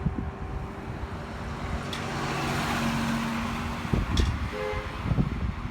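Wind gusting against the microphone, with a vehicle passing by in the middle: its noise swells and fades over about two seconds.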